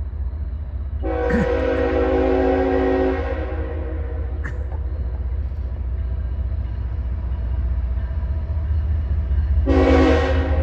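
Train horn sounding a long chord-like blast about a second in, then a second blast starting near the end, over the steady low rumble of a passing train.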